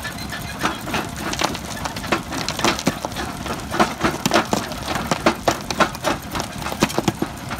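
Small flywheel jaw crusher breaking up a concrete paving stone: a string of sharp, irregular cracks and crunches starting about half a second in, as the crushed pieces drop onto a steel plate.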